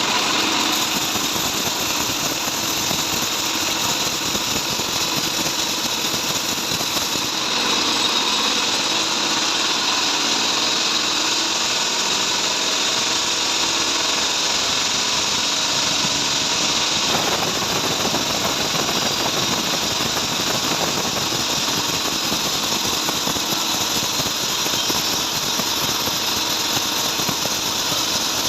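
Band sawmill running steadily while sawing trembesi (rain tree) wood. The sound changes about 7 seconds in and again about 17 seconds in.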